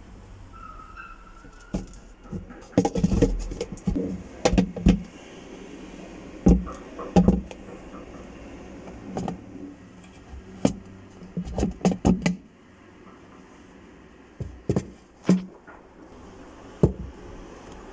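A string of irregular knocks and clatters, bunched in quick clusters about 3 to 5 seconds in and again around 11 to 12 seconds in, with a few single knocks later.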